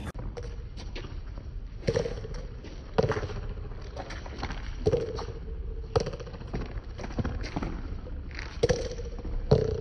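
A small rubber handball being slapped by hand and bouncing off a concrete wall and court. There are about half a dozen sharp smacks a second or two apart, each leaving a short hollow ring.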